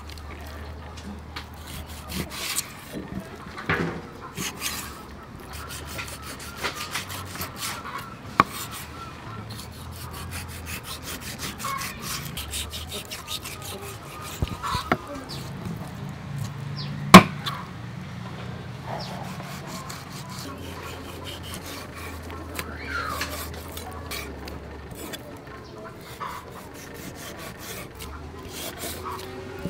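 Kitchen knife slicing raw beef on a wooden chopping block: repeated short cuts and scrapes of the blade through the meat and across the wood, with a sharp knock a little past halfway.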